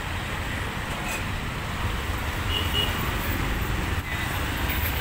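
Steady street traffic noise, with a low engine rumble from vehicles passing.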